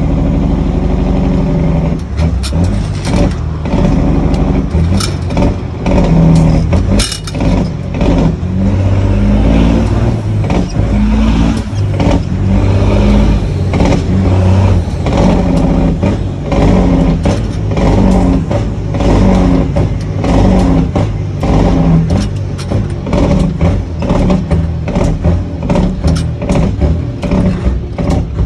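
The Detroit 14-litre inline-six diesel of a semi truck pulling hard, heard from inside the cab while the driver works the 18-speed gearbox. The engine note falls and rises again in repeated steps, with frequent short clicks and rattles over it.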